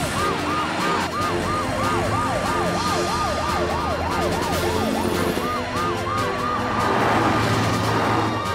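Cartoon emergency-vehicle sirens sounding together as the rescue vehicles set out: one wails up and down quickly, about three sweeps a second, while another pulses at a higher pitch. A low steady hum runs underneath.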